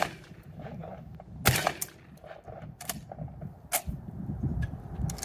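12-gauge Dickinson XXPR semi-automatic shotgun fired three times at an uneven pace, the shots about a second and a half, then just under a second apart, with fainter clicks between them.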